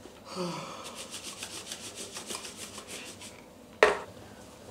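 Quick, even rubbing or scratching strokes on fabric, about eight a second for some three seconds, then a single sharp slap.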